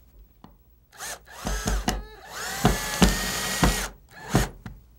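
Power drill driving a wood screw into the edge of plywood with no pilot hole, which splits the plywood. The motor whines in a few short spins, then runs steadily for about a second and a half, then gives one more brief spin near the end.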